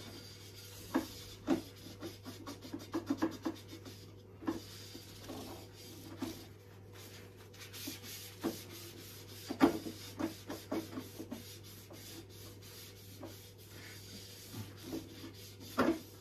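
A cloth rubbing and scrubbing over the ridged nonstick plate of an electric grill in short, uneven strokes, working at a stubborn mark of residue on the surface.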